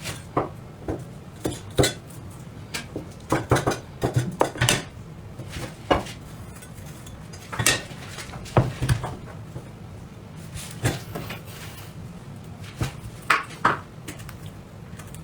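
Irregular clicks, taps and knocks of a knife and kitchen utensils against a cutting board and dishes, as vegetables are cut and carved by hand.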